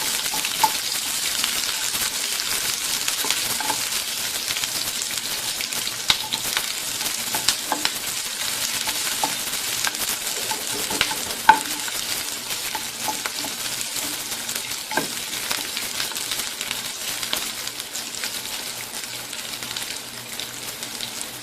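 Sliced onion and curry leaves sizzling in a little hot oil in a pan as they are sautéed, with the utensil clicking and scraping against the pan while stirring. There is a sharper clink about halfway through.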